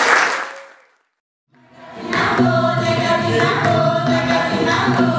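Applause fading out to a moment of silence, then a women's choir starting to sing together, with an acoustic guitar playing along.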